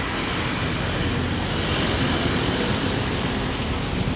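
Street traffic on a wet road: a steady hiss of tyres with a low engine hum underneath.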